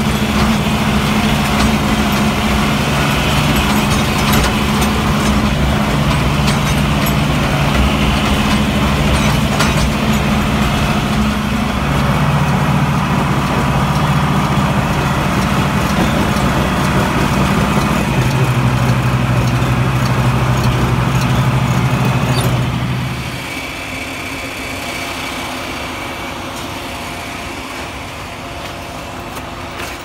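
John Deere tractor engine running steadily while a feeder wagon unloads feed. The engine note steps lower twice, about 12 and 18 seconds in, then cuts off abruptly about 23 seconds in, leaving a quieter, even background noise.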